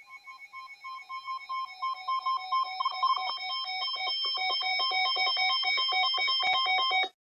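Electronic alert tone: rapid beeping at a couple of fixed pitches, growing louder over the first few seconds, then cutting off abruptly near the end.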